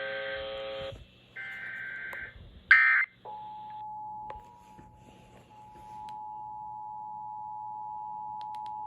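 Emergency Alert System tones: harsh, warbling digital data bursts of the EAS code, one ending about a second in and another about a second long after a short gap. A brief very loud burst follows, and from about three seconds in the steady two-tone EAS attention signal holds.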